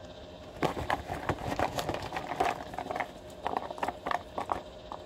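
Small pieces being handled on a tabletop: a run of irregular clicks and light clatter lasting about four seconds.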